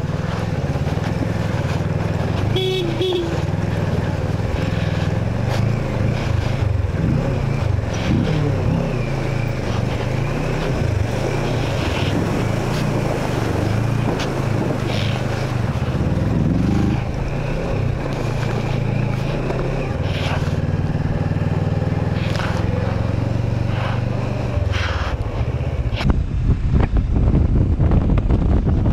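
Motorcycle engine, a Kawasaki Versys 650 parallel-twin, running as the bike is ridden through a river crossing, its revs rising and falling now and then. Near the end, wind rushing on the microphone takes over.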